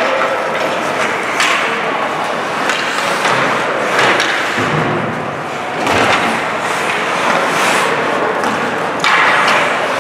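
Ice hockey play: skate blades scraping the ice and sticks and puck clacking, with several sharp thuds.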